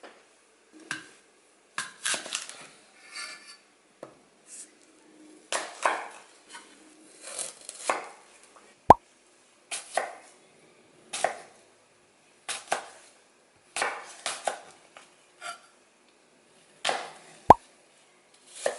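Objects being handled and set down by hand: a series of light knocks and taps at uneven intervals, with two sharp clicks about nine seconds apart.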